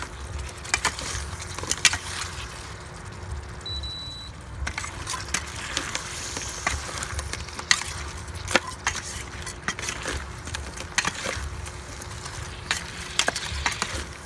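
A metal spoon scraping and clinking against a stainless steel pan as crabs in curry sauce are stirred, giving many irregular sharp knocks. The sauce sizzles underneath.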